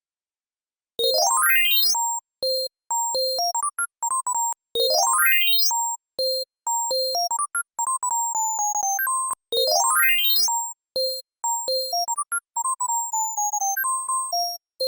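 Bright bell-like synth arpeggio made in the Serum software synthesizer, starting about a second in. A fast upward run of notes comes three times, about every four and a half seconds, and short separate notes follow each run.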